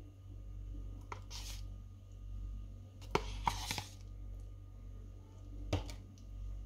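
A metal tablespoon scooping sour cream and dropping it onto a salad in a glass bowl: a few scattered soft scrapes and clicks, with a cluster of sharper clicks about three seconds in.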